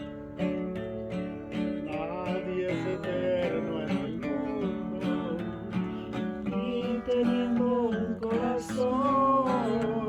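Acoustic guitar music: a steady strummed rhythm with a bending lead melody line coming in about two seconds in.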